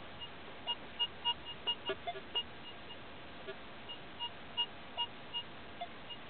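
Minelab X-Terra 705 metal detector with a 10x15 DD coil giving a string of short beeps of one pitch in two quick runs, as the coil sweeps back and forth over a metal target under it.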